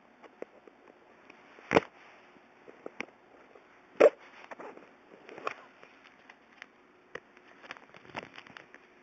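Handling noise as a small cardboard product box is opened by hand: scattered clicks, taps and rustling, with two sharp knocks about two and four seconds in.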